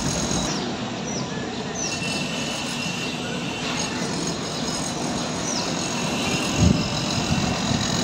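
Steady mechanical rumble and hiss, with a few short high chirps and a brief low thump near the end.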